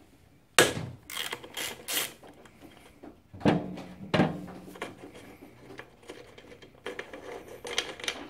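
Hand ratchet clicking and steel tools clinking on the nuts and bolts of a dirt bike's rear suspension dog bone link as they are undone. The clicks come in short bunches, with a sharp metal knock about half a second in as the loudest sound.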